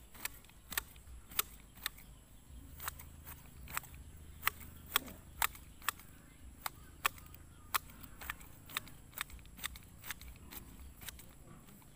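Hand grass shears snipping grass, a sharp metallic click with each closing of the blades, roughly two a second with a brief pause early on.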